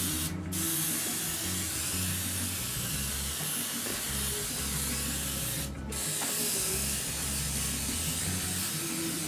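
Airbrush spraying paint through a cardboard brick stencil: a steady hiss of air and paint that breaks off briefly twice, about half a second in and just before six seconds.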